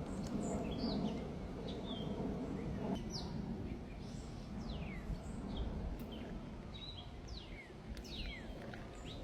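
Small birds chirping and calling in a tree: many short, quick chirps that fall in pitch, overlapping throughout, over a steady low background rumble.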